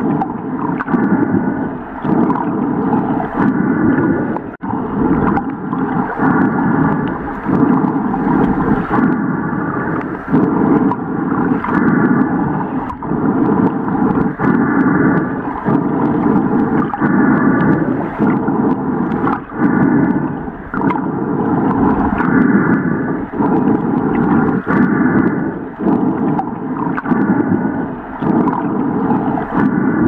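Underwater ambience sound effect: a steady low rushing with a pitched, layered pattern that repeats about once a second.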